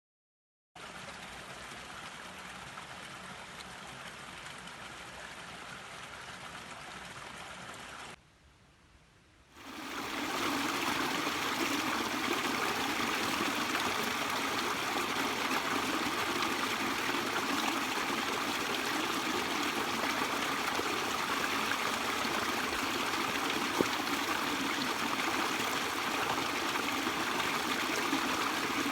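Steady rushing of flowing water, like a stream. It comes in after a moment of silence, fainter at first, drops away briefly about 8 seconds in, and returns louder from about 10 seconds. A single sharp click sounds near the end.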